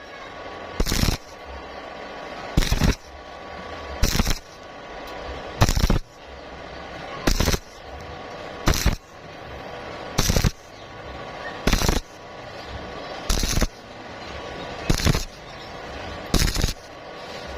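Stick welding on thin square steel tubing in a stitch rhythm: a steady arc crackle broken by a loud sputtering burst about every one and a half seconds.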